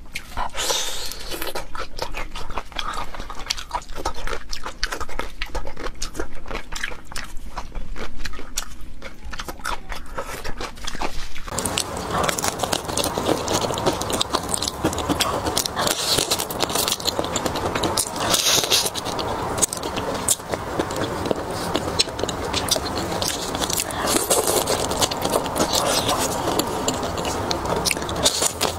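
Close-miked eating sounds of raw marinated shrimp: wet biting, sucking and chewing with sharp clicks. About eleven seconds in the sound changes to a denser, steadier crackle of biting and chewing.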